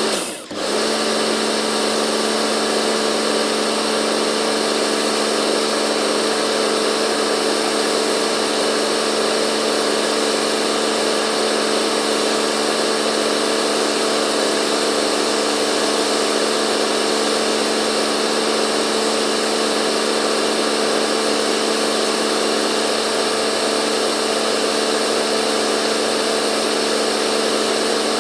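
Pressure washer running: a steady pump-motor hum under the continuous hiss of the high-pressure spray. The sound dips briefly about half a second in, then holds steady.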